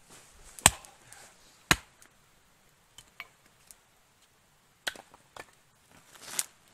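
Hatchet splitting firewood on a log chopping block: two sharp chops in the first two seconds, then lighter knocks of split wood being handled, and a short rushing breath-like sound near the end.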